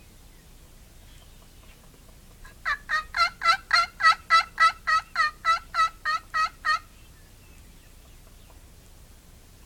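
Wild turkey yelping: a loud, evenly paced run of about fifteen yelps, three to four a second, starting a few seconds in and stopping abruptly.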